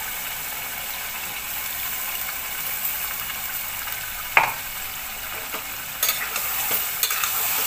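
Chicken livers and green masala paste sizzling in oil in a steel pot, a steady hiss. There is a single sharp knock about four seconds in, and from about six seconds in a spatula starts stirring in the pot with scraping and clicking.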